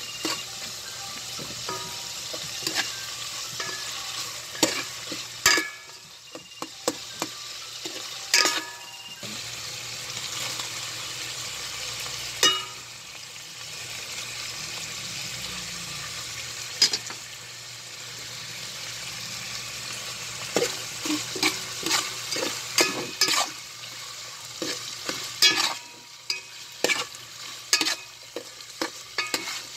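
Chicken, onion and garlic sizzling in oil in a metal pot, with a steady frying hiss. The pot is stirred with a spatula that scrapes and clacks against its sides in irregular sharp knocks, busiest near a third of the way in and through the last several seconds.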